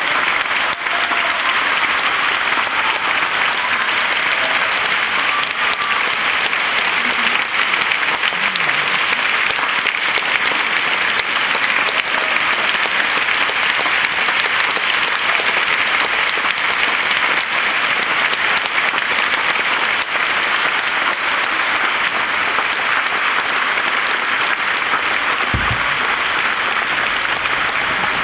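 Large theatre audience applauding steadily, a dense, even clapping that holds throughout. A brief low bump sounds near the end.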